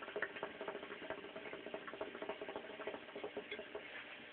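Hookah bubbling as smoke is drawn through the hose: water gurgling in the base, a rapid, irregular run of small pops that stops about four seconds in.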